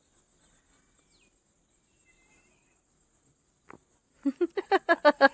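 Faint steady chirring of crickets with a few soft bird chirps. About four seconds in, a child breaks into quick repeated laughter, the loudest sound.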